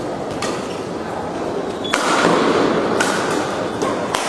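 Badminton rackets striking a shuttlecock in a doubles rally: four sharp cracks about a second apart, over the steady murmur of the crowd.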